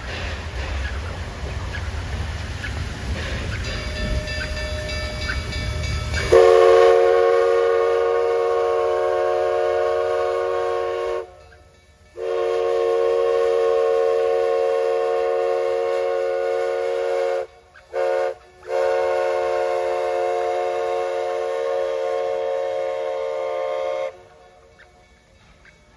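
Steam whistle of Black Hills Central Railroad 110, a Baldwin 2-6-6-2T Mallet tank locomotive, blowing several tones at once in four blasts: long, long, short, long. This is the standard signal for a grade crossing ahead.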